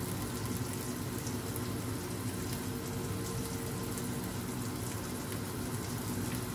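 Steady kitchen background noise: a low hum under an even hiss.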